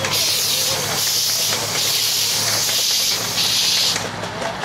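A 7¼-inch gauge miniature railway train, a diesel-outline locomotive hauling hopper wagons, passing close by with a loud steady hiss over a low engine hum. The hiss drops away about four seconds in as the last wagons go past.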